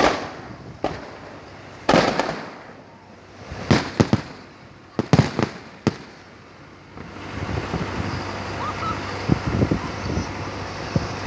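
Festive fireworks salute: about nine booms at irregular intervals over the first six seconds, each trailing off in a rolling echo, then a quieter stretch of background noise.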